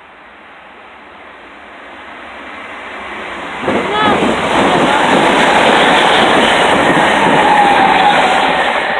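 A train running past close by the platform: its noise builds over the first few seconds, becomes loud and steady about three and a half seconds in, and starts to fade near the end, with a brief high squeal just before.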